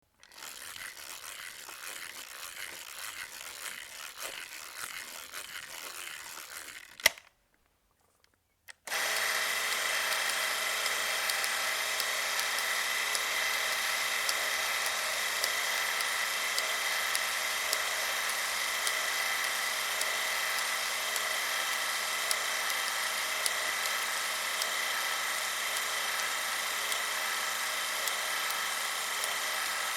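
Bolex H16 Reflex 16mm film camera: for about seven seconds a softer, uneven mechanical rattle of the camera mechanism being worked by hand, ending in a sharp click. After a short pause the camera's spring-wound clockwork motor runs the film transport at a steady whir with a high whine.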